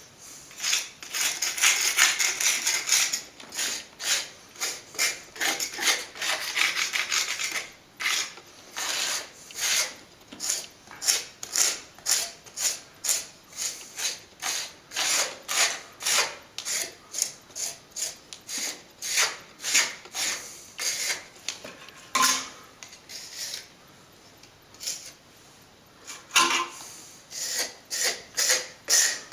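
A plastering tool scraping back a setting base coat of sand and stopping plaster, cutting it slightly below the wall surface to leave room for the finishing white coat. Long rasping scrapes at first, then quick separate strokes about two a second, with a pause of a few seconds past the middle before the strokes start again.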